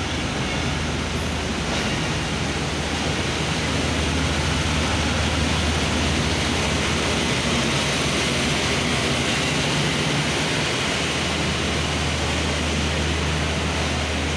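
Passenger train coaches rolling past a station platform as the train pulls in: a steady rumble and hiss of wheels and bogies. A low hum runs under it, strongest around the middle as the generator power van goes by.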